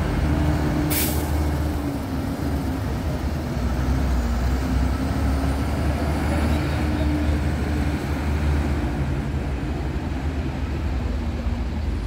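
NPM intercity coach's diesel engine running steadily as the bus pulls away at low speed, with a short hiss of air released from the air brakes about a second in.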